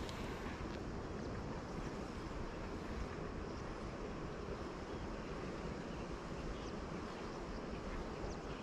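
Steady outdoor noise of wind buffeting the microphone, over the sound of the river's water.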